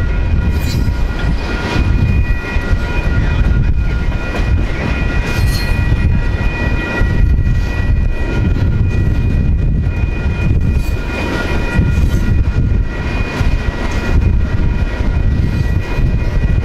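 Freight cars of two trains rolling slowly past side by side: a heavy, steady rumble of steel wheels on rail, with several steady high-pitched tones ringing over it.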